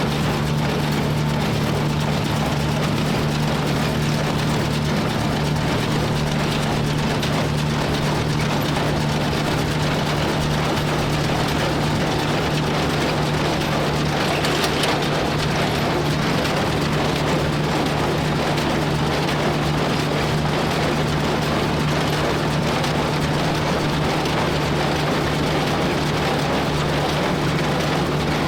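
An engine running steadily at a constant speed, with a low, even drone and no change in pitch or level.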